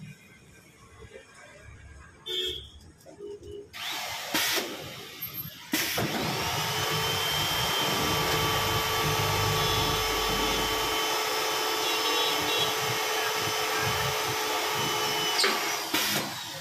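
A machine running steadily with a whine and a hiss, starting about six seconds in and cutting off near the end.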